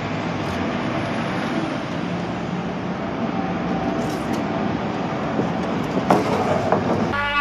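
Steady rushing noise of road traffic passing nearby. Brass music comes in just before the end.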